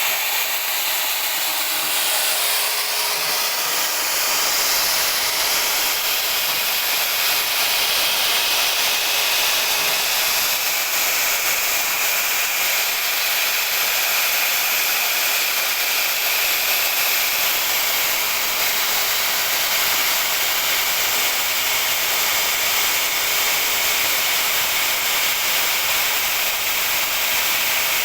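CNC router spindle carving marble, a steady high hissing whine of the cutter grinding the stone.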